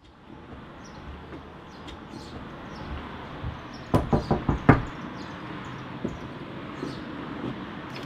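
A quick series of about five knocks on a house's front door, about four seconds in, over a steady low outdoor background hiss.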